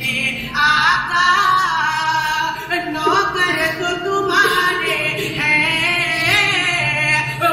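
A solo voice singing a devotional naat melody in long, ornamented phrases, its pitch gliding and bending with no clear words.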